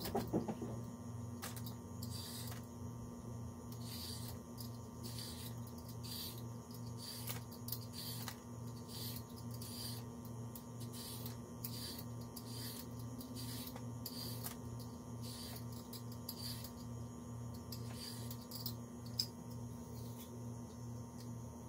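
Repeated short blade strokes on carrots, about two a second, sped up to double speed, over a steady low hum.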